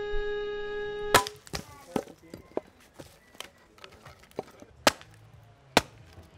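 An axe chopping firewood on a chopping block: three sharp chops, the first about a second in, with lighter knocks of wood between. A held musical note ends just as the first chop lands.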